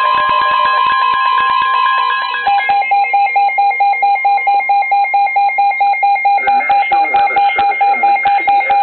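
Weather radios sounding a severe thunderstorm warning alert: a steady high tone, the weather radio warning alarm tone, mixed with other steady tones, stops about two and a half seconds in and gives way to rapid electronic beeping, about four beeps a second.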